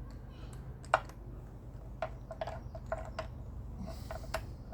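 Scattered light clicks and taps of a spark plug socket and a just-removed spark plug being handled on an outboard engine, coming at uneven intervals over a low steady hum.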